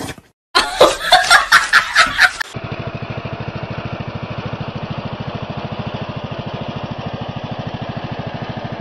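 A person laughs in loud, choppy bursts for about two seconds. Then a ride-on lawn mower's engine runs steadily with a fast, even pulsing as the mower drives across the grass.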